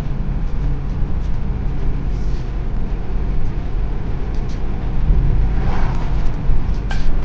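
Motor vehicle on the move: a steady low engine and road rumble, with a few faint clicks.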